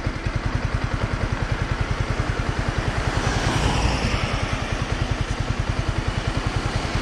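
Yamaha R15 V4's 155 cc single-cylinder four-stroke engine running at a low, even beat of about ten pulses a second. A rushing hiss swells and fades a little past the middle.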